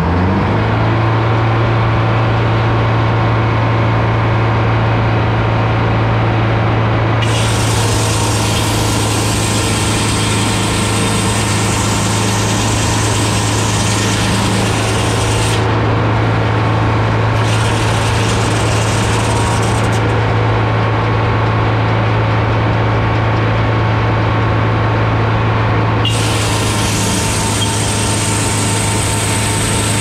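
Large circular sawmill blade, driven by a supercharged GM 4-71 two-stroke diesel, ripping an oak cant into fence boards. The diesel runs steadily throughout, and the blade cuts through the wood in stretches: from about seven seconds in with a brief break, then again for the last few seconds.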